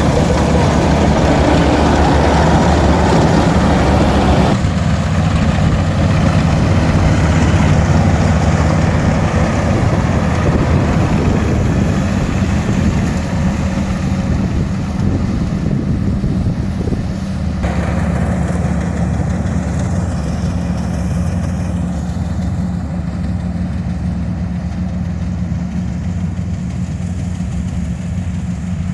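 Diesel engine of a rice combine harvester running steadily, a continuous low machine hum under a broad mechanical clatter. The higher part of the sound drops away twice, at about 4 seconds and about 18 seconds in, as the machinery shifts.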